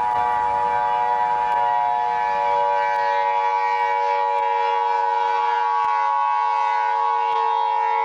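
Siren sounding a steady chord of several held tones, with no rise or fall in pitch, then cutting off at the end; a civil-defense-style alert siren of the kind that precedes an emergency broadcast.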